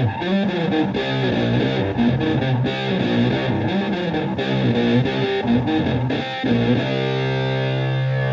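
Electric guitar, a Stratocaster through an ESR Graphic Fuzz pedal into a Twin Reverb–style valve amp, playing a fuzzed-out riff of quick notes, then a chord struck and left to sustain about seven seconds in.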